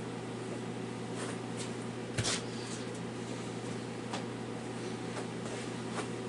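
A steady low hum of room tone with a few light clicks and knocks, the loudest a little over two seconds in.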